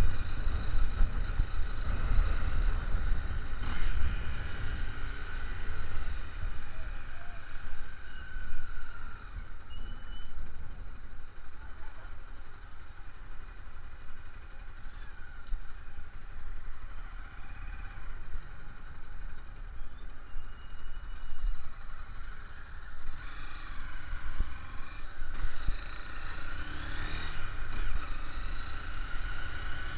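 A moving vehicle with a steady low rumble throughout, and faint wavering high tones that grow clearer near the end.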